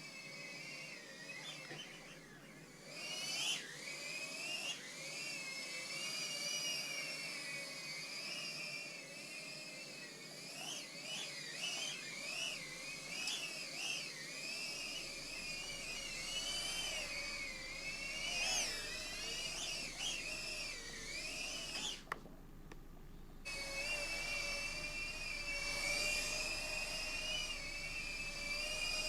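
High-pitched whine of a Mobula7 HD tiny-whoop FPV drone's small brushless motors, the pitch rising and falling quickly with the throttle. The whine cuts out for over a second about 22 s in, then comes back at a steadier pitch.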